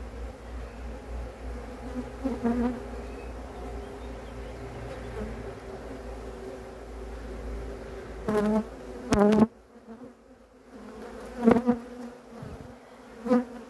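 Honeybees buzzing in numbers around an opened hive: a steady hum, with a few brief, louder buzzes in the second half.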